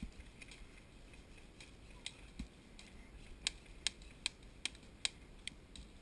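Airsoft guns firing: sharp, fairly quiet snaps, one about two seconds in and then six more in an even string of about two and a half a second.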